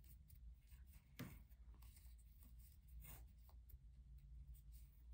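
Near silence, with the faint rustle and scrape of a crochet hook drawing cotton twine through stitches, including a few soft strokes, one about a second in and more around three seconds in.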